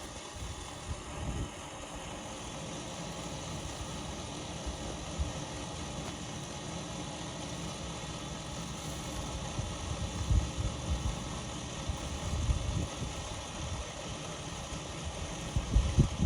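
An engine running steadily at an even speed, with a few low knocks about ten to thirteen seconds in and again near the end.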